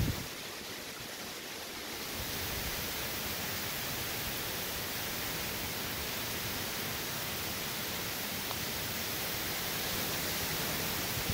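Heavy hurricane rain falling in a steady hiss, a little softer for the first two seconds.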